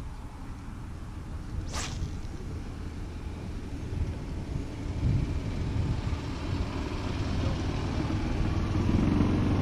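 Golf cart running, a low rumble that grows louder toward the end as a steady hum comes in. A brief swish is heard about two seconds in.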